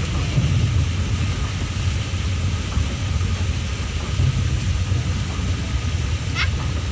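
Cabin noise of a vehicle driving in the rain: a steady low engine and road rumble under an even hiss of rain and wet tyres. A short high chirp sounds near the end.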